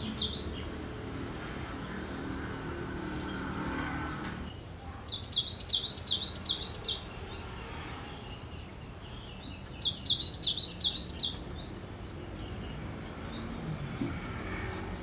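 Cinereous tit (gelatik batu) singing in full voice: bursts of rapid, repeated high whistled notes, about four a second. One phrase ends right at the start, then two more of about two seconds each come about five and ten seconds in.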